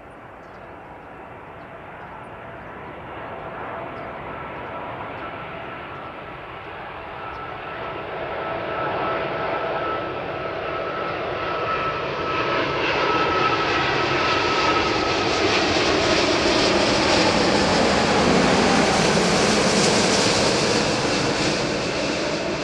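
Airbus A380-841 airliner on landing approach, its four Rolls-Royce Trent 970 turbofans passing low overhead: a jet rumble and whine that grows steadily louder, with whining tones that slide down in pitch as it goes over, loudest near the end.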